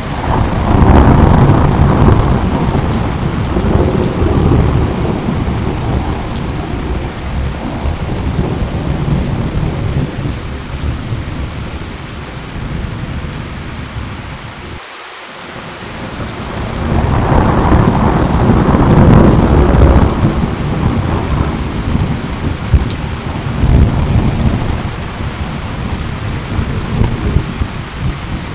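Two long rumbles of thunder. The first sounds at the outset and fades over about fourteen seconds. After a brief gap, a second builds and rolls on almost to the end. Steady rain hisses under both.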